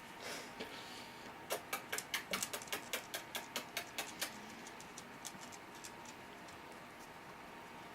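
Small puppy claws clicking on a hard floor in a quick run of about four or five ticks a second, then a few scattered clicks.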